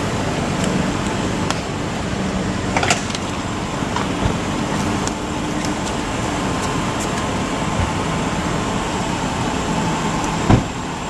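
A Ford Explorer SUV idling at close range, a steady engine and exhaust hum. A single sharp knock sounds near the end.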